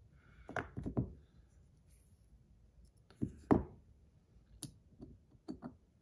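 Scattered light clicks and knocks of small metal fidget spinner parts being handled as buttons are taken off and fitted. The loudest is a pair of knocks about three and a half seconds in.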